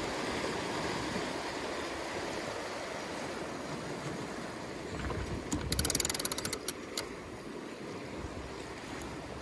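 Sailboat cockpit winch ratcheting: a quick run of about a dozen sharp clicks about six seconds in as the handle is cranked, then one more click. Steady rush of water and wind past the hull as the boat surfs downwind.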